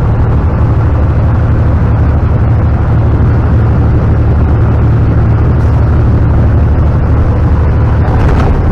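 John Deere combine running steadily under load while cutting soybeans: a loud, even drone with a strong low hum.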